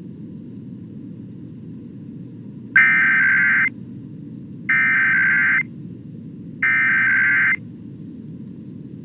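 Emergency Alert System SAME header broadcast over the radio: three identical bursts of buzzy digital data tones, each about a second long and a second apart, starting about three seconds in. They mark the start of a required weekly EAS test and sound over a steady low background hum.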